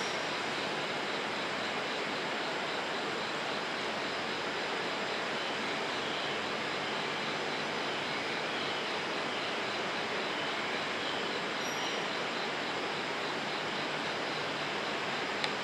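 HB-E300 hybrid diesel railcar set pulling slowly into a station, heard as a steady, even rushing hum of its running gear and power unit. A short click comes near the end.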